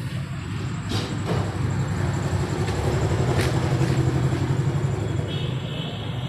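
An engine running steadily, swelling in loudness toward the middle and easing off near the end.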